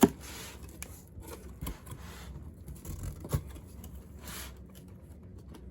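Cardboard box being handled and opened: a sharp knock at the start, then scattered scrapes, rustles and clicks, with a louder knock about three and a half seconds in and a short swish about a second later.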